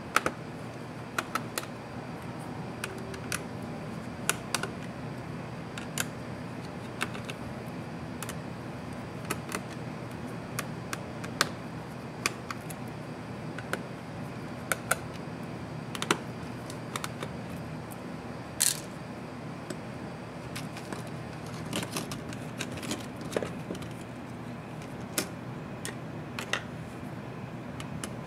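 Scattered small clicks and taps of plastic and metal laptop parts being handled and lifted during a teardown, at irregular times, over a steady low hum.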